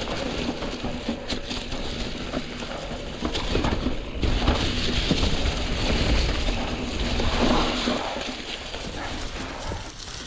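Mountain bike tyres rolling over a trail covered in dry fallen leaves: a continuous crunching and crackling, with a low rumble underneath.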